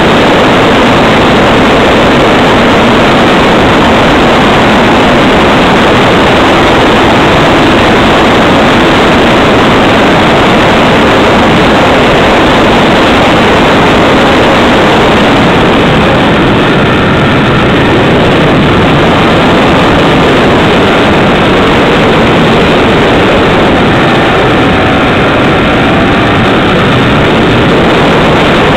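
Loud, overdriven rush of wind and propeller noise heard from a camera mounted on the nose of a radio-controlled FMS Cessna 182 model plane in flight. The rush eases slightly about halfway through, and faint whining tones show through.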